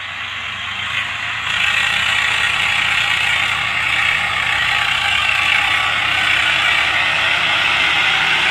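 Swaraj 744 XT diesel tractor engine working under load as its rear wheels dig and spin in loose sand, with a steady mechanical clatter. It gets louder about a second and a half in.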